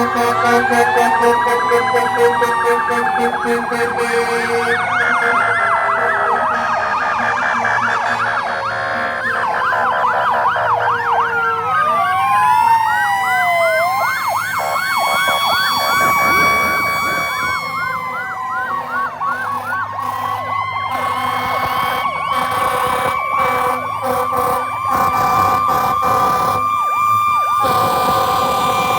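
Several sirens sounding at once, overlapping: slow rising-and-falling wails, a fast yelp, and toward the end a steady held tone.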